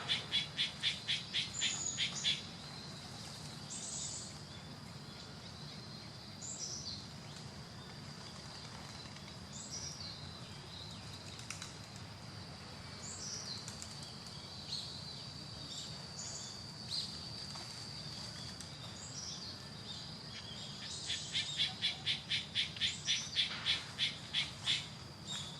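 Outdoor birdsong: short, high, descending call notes every few seconds. A fast run of ticking notes, about four to five a second, plays at the start and again near the end, over a steady high-pitched hum.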